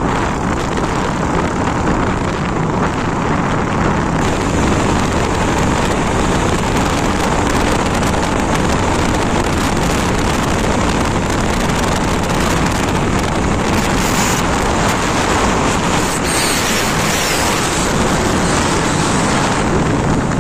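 A motorcycle riding at speed on the road: steady, loud wind rush over the microphone mixed with the bike's running and road noise.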